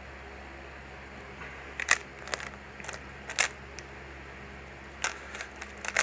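3x3 Rubik's Cube being turned fast in a speed solve: its plastic layers click and clack in quick clusters from about two seconds in, over a steady background hiss.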